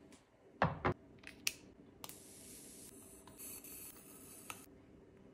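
Two quick knocks about half a second in, then a hiss of household cleaner being sprayed for a couple of seconds.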